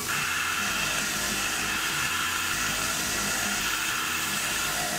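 Tormach PCNC 1100 CNC mill running, with its spindle turning an end mill that feeds into a 4140 steel part while mist-coolant nozzles spray on the cut. It is a steady hiss with a high, even whine beneath it.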